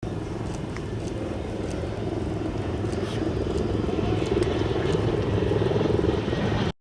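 Steady low drone of a running vehicle, even throughout with no breaks.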